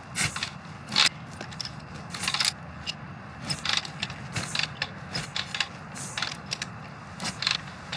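Harley EVO Big Twin being kick-started over and over: the kick-start pedal and gear train clank and rattle with each kick, and the engine does not catch. The owner puts the failure to start down to fuel not getting into the newly fitted Lectron carburetor.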